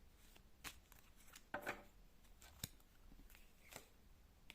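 Near silence with a few faint, scattered clicks and a soft rustle: tarot cards being handled.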